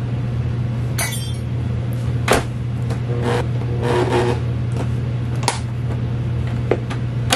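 Electric stand mixer running with a steady low hum, mixing cold butter into a dry, crumbly flour mixture for graham cracker dough, with a few sharp clunks as the mixer head and bowl are handled.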